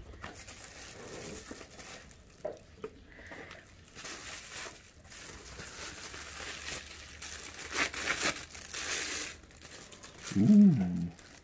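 Bubble-wrap pouch and plastic packaging crinkling as they are handled and pulled off a small camera lens mount adapter, strongest a little after the middle. Near the end a brief vocal sound is the loudest moment.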